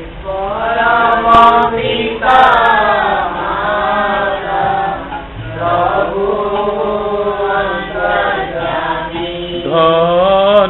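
A slow Odia devotional song (bhajan) being sung, with long held notes that waver and bend in pitch.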